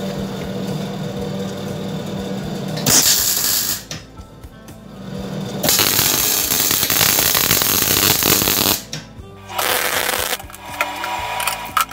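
Electric arc welding tack-joining two steel blocks: several stretches of crackling arc over a steady welder hum, the longest about three seconds, with short pauses between welds.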